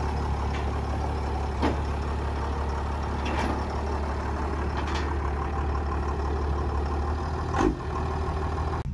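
Dodge Ram pickup's engine running at a steady low idle as the truck creeps down off a trailer, with four knocks and clunks as the wheels roll over the wooden deck and steel ramps, the loudest near the end.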